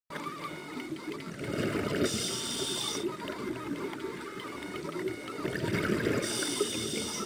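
Scuba diver breathing through a regulator underwater: a bubbling exhale followed by a hissing inhale, twice.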